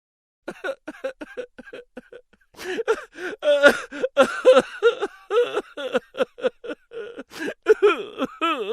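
Comic sound effect of a high-pitched, cartoonish voice in rapid short syllables, like chattering laughter, starting about half a second in. It grows louder about a third of the way through and ends with a wavering sound.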